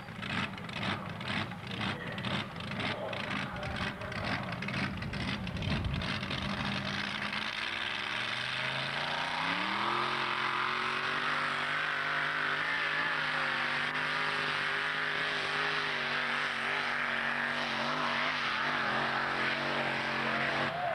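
Modified pulling tractor's engine running at the start line with a quick uneven beat, then rising in pitch from about eight seconds in and holding a high, steady note at full throttle as it drags the weight sled down the track.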